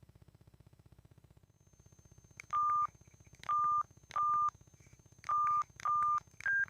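Samsung SGH-T410 keypad beeps: six short electronic beeps, five at one pitch and a shorter, higher sixth one, each with a faint button click.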